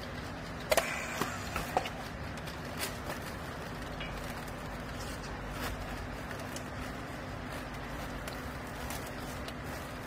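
A handheld battery strapping tool gives a quick run of sharp clicks and snaps about a second in as it works a plastic strap around a compressed clothes bale, over a steady low machine hum.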